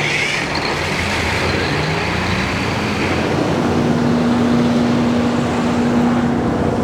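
MTU diesel engine of a Kohler 1000 kW generator just after a remote start, its pitch rising for about two seconds as it comes up to speed, then running steadily.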